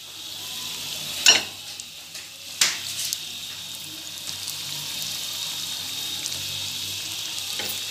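Breadcrumb-coated potato cutlets deep-frying in hot oil, a steady sizzle, with two sharp taps about a second and two and a half seconds in.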